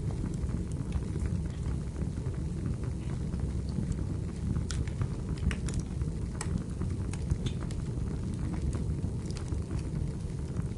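Wood fire burning in a fireplace: a steady low rumble of the flames with frequent sharp crackles and pops of the burning firewood scattered throughout.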